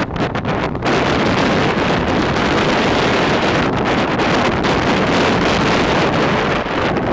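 Strong wind buffeting the microphone: a loud, steady rush of noise that thickens about a second in.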